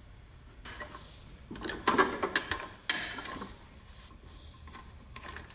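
Metal clicks and knocks of a wrench and copper brake line being handled at the master cylinder's fittings, a short burst of them about one and a half to three seconds in.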